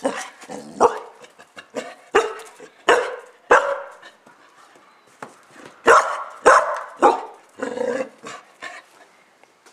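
Young dog barking, about nine short, sharp barks with a lull of about two seconds in the middle.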